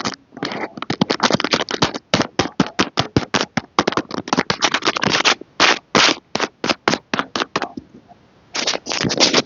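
Packaging being handled and opened: rapid, irregular crinkling and scraping, with a short pause about two seconds in and a longer one near the end.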